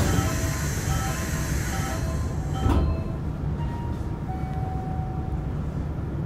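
Nankai 8300 series electric train running, its wheels rumbling steadily on the rails, with the Hitachi SiC VVVF inverter's tones stepping in pitch. A loud hiss in the first three seconds or so ends in a brief louder burst.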